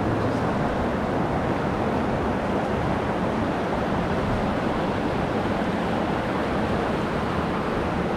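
Steady rush of river rapids around a raft.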